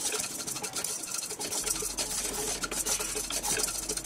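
Wooden spatula stirring and scraping dry whole spices (coriander, cumin, fennel and fenugreek seeds with split yellow mustard) around a nonstick kadhai: a continuous dry scraping and rustling with many small clicks from the seeds as they are dry-roasted on low flame.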